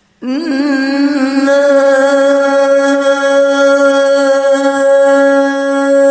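A man singing an Islamic sholawat, holding one long note that begins abruptly about a quarter second in, wavers in pitch at first and then holds steady.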